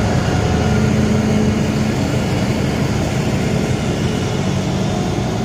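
Flatbed tow truck's engine idling steadily, a low even hum.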